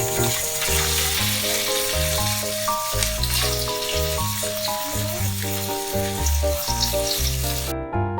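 Food frying, a dense steady sizzle that cuts off shortly before the end, over background piano music.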